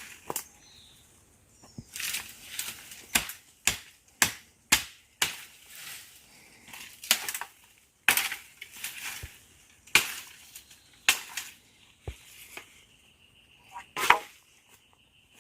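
A run of sharp chopping knocks at an uneven pace, roughly one or two a second, some trailing into a short rasp, with the loudest blow near the end.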